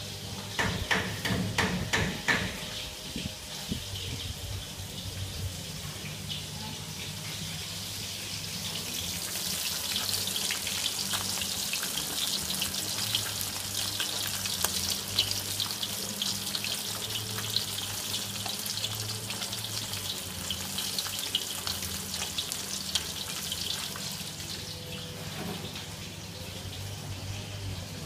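Butterflied sea fish frying in oil in a wok, a dense sizzling crackle that builds up about a third of the way in and keeps going. A few sharp clatters of utensils come near the start, and a low steady hum runs underneath.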